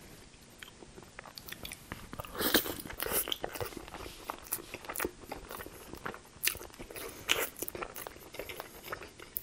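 Close-miked chewing of rotisserie chicken breast dipped in cheese sauce: irregular mouth clicks that start about two seconds in.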